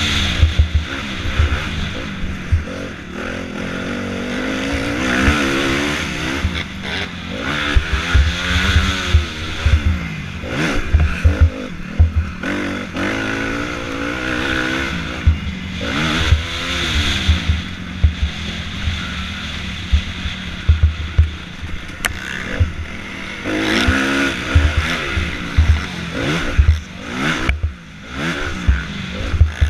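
Motocross bike engine heard from the rider's onboard camera, revving up and dropping back over and over as the rider accelerates and shifts, with frequent low thumps and wind rumble on the microphone.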